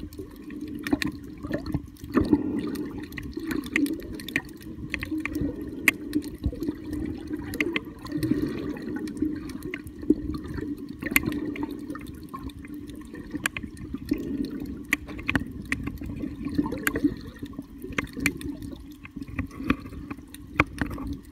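Underwater sound picked up by a camera filming a coral reef: a muffled water rush that swells and fades every second or two, with many sharp clicks scattered through it.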